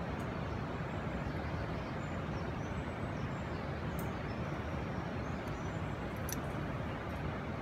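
Steady rushing background noise with no clear source, with a few faint high chirps and light clicks.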